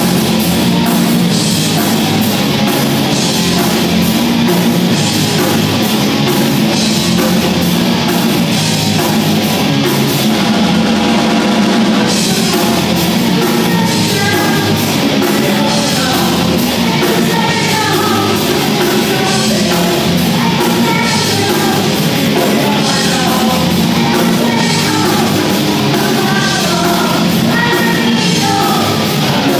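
Live rock band playing: drum kit with steady cymbal strokes, electric guitars and keyboard, the cymbals dropping out briefly about ten seconds in. A woman's lead vocal comes in over the band in the second half.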